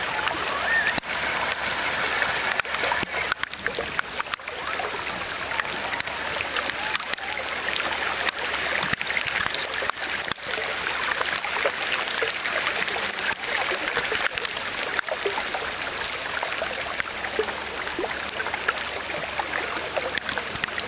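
Heavy rain hitting a shallow river, a dense steady hiss of drops with many small splashes, along with water splashing around a small RC truck wading through it.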